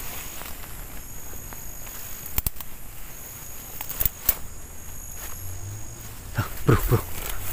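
Footsteps and rustling through dense weeds, with a few sharp clicks and a louder cluster of rustles near the end. Insects call in steady high-pitched tones that start and stop.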